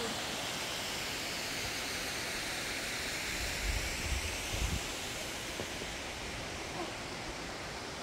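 Steady rushing of a waterfall pouring into a rock pool, with a few low thumps about halfway through.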